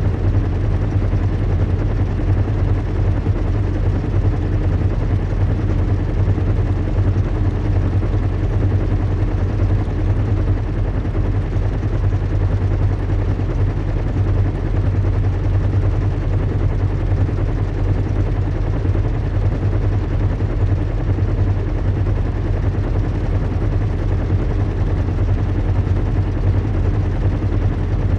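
Recreated airship-in-flight ambience: a steady, unchanging low rumble and hum of engines. Most of the weight is deep in the bass, with a faint steady tone above it.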